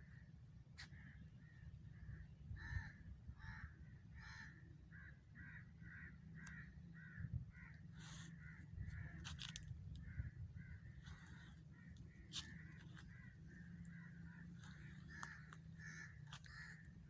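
Faint bird calls: a long string of short, repeated calls, a few each second, with a few scattered sharp clicks and a steady low rumble underneath.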